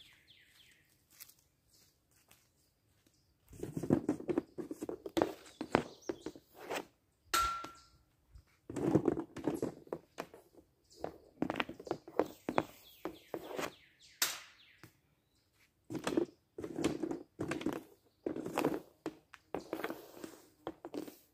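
Hockey stick blade clacking and scraping on a homemade shooting pad as pucks are stickhandled and shot, in repeated flurries of sharp clacks and knocks, with a brief ringing clink about seven seconds in.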